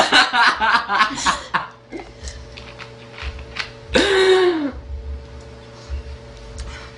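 Voices and laughter at the start, then about four seconds in a single loud burp lasting under a second, its pitch rising and then falling.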